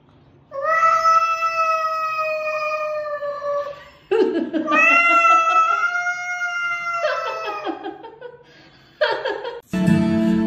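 A cat yowling: two long, drawn-out wails of about three seconds each, then a short cry, a warning yowl at another cat. Guitar music comes in near the end.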